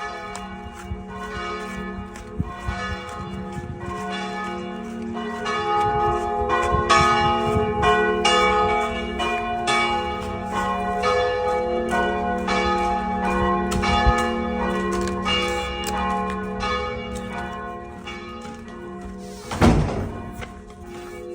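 Church bells ringing, many strikes following one another quickly and overlapping as they ring on. A loud thud near the end.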